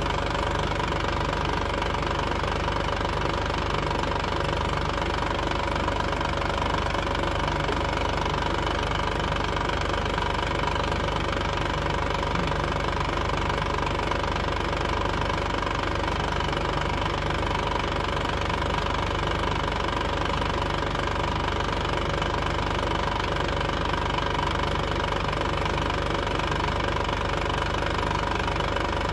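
An engine idling steadily, an even running sound with a constant tone that does not change.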